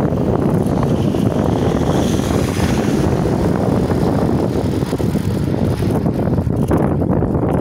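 Wind rumbling on the microphone of a phone mounted on a moving bicycle's handlebars: a steady low rumble, with a higher hiss swelling and fading a couple of seconds in.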